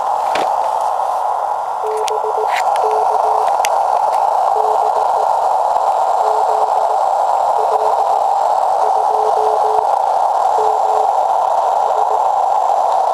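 Amateur radio receiver hiss, filtered to a narrow band, with a weak Morse code (CW) signal keying a low tone on and off through it. A few clicks come about two to three and a half seconds in.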